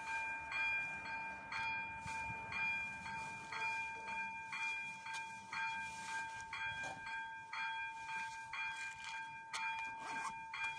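AŽD 97 level-crossing warning signal's electronic bell ringing: a high, bell-like tone struck over and over in a steady, even rhythm, sounding with the alternately flashing red lights to warn of an approaching train.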